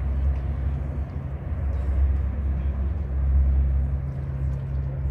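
Steady low engine drone of a passing Rhine cargo barge, a constant deep hum with no change in pitch.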